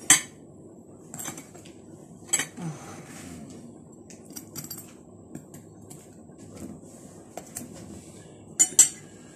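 Metal fork clinking against a plate as pie is cut and eaten: a sharp clink at the start, another about two and a half seconds in, and two in quick succession near the end, with lighter taps between.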